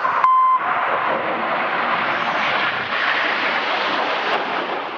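Jet noise from the Red Arrows' BAE Hawk jets passing, a loud steady rush that eases off near the end. A short beep sounds just after the start.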